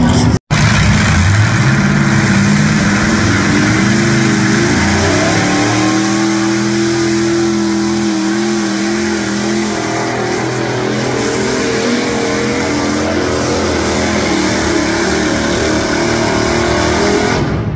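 Pulling truck's engine at full throttle hauling the sled, its revs climbing over the first few seconds and then held high, with a heavy rushing noise over it. The sound drops out for an instant just after the start.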